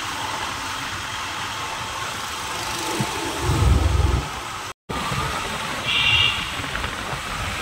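Riding a two-wheeler on the road: steady engine and road noise. There is a louder low rumble about three and a half seconds in, the sound drops out for a moment near five seconds, and a short high-pitched tone sounds about six seconds in.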